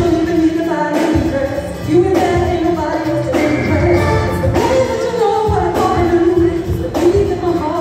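Loud amplified music with a singer's melody over bass and drums, from a stage show, heard from the audience in a large hall.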